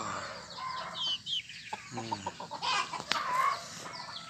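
Caged roosters clucking, with short calls scattered throughout and a sharp click about three seconds in.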